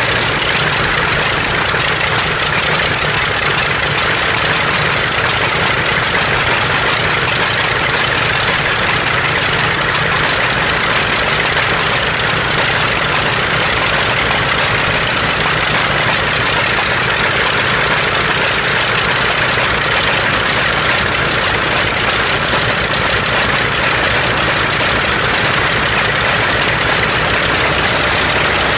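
The Nakajima Sakae 14-cylinder two-row radial engine of a Mitsubishi A6M5 Zero fighter runs steadily at low ground-run rpm, its propeller turning. It is loud and even throughout, with no change in speed.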